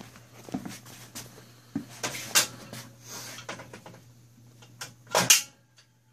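Knocks and clanks of the steel cradle arms of a drywall panel hoist being handled and set in place: a couple of sharp knocks about two seconds in and the loudest one about five seconds in, with quieter rattles between.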